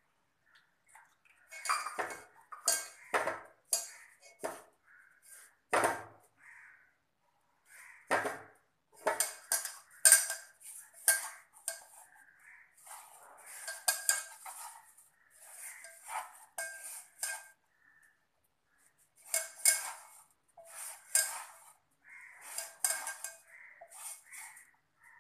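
An aluminium pot clinking and ringing in irregular knocks as a hand mixes flour, sugar and egg into a crumbly dough in it, with glass bangles on the wrist clinking against the metal. Many knocks carry the same ringing note of the pot.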